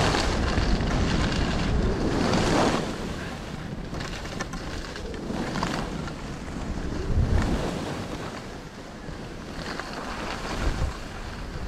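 Rushing wind noise on the microphone, swelling and fading in gusts a few seconds apart over a low rumble.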